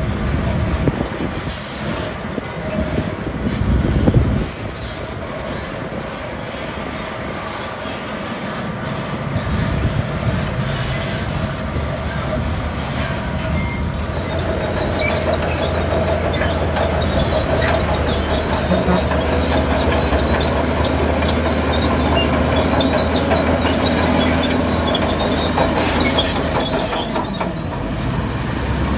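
Crawler bulldozer's diesel engine working, with its steel tracks clanking and squeaking. There are heavy knocks in the first few seconds, then a steady low engine note from about a third of the way in.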